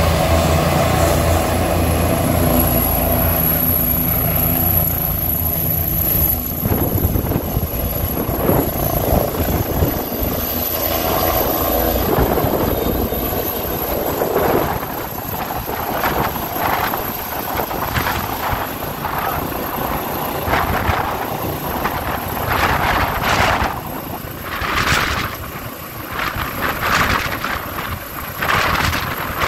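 Police helicopter running with a steady high turbine whine. It sits on the ground for the first few seconds, then lifts off, and its rotor noise turns into an uneven, surging rush while it hovers overhead with a person on the winch cable.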